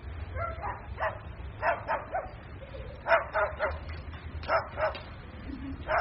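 A dog giving a series of short yips and barks, some in quick clusters, over a steady low hum.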